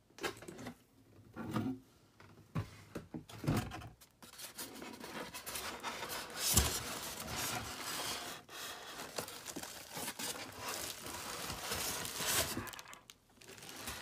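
Plastic wrapping and bubble wrap crinkling and rustling as a wrapped glass kettle is worked out of its cardboard box and foam packing. A few separate knocks and scrapes come first, then a continuous crackly rustle for most of the rest.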